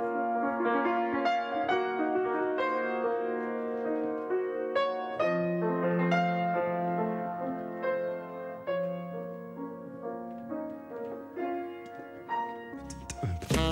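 Background piano music: a slow line of single struck notes and chords, each fading after it sounds, with a low held note coming in about five seconds in. Near the end it gives way to another piece of music.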